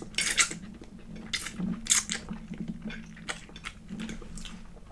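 A person eating pasta noodles close to the microphone: slurping the noodles in near the start, then chewing with a series of wet mouth smacks and clicks.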